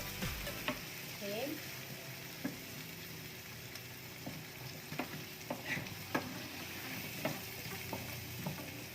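Potato and carrot wedges frying in hot oil with garlic and onions, sizzling steadily while a utensil stirs them, with scattered sharp clicks of the utensil against the pan.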